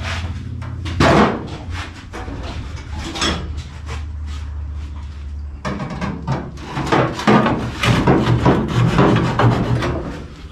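Metalwork on a bare car body shell: irregular knocks, clatter and scraping of metal, with a sharp knock about a second in and much busier knocking in the second half, over a steady low hum.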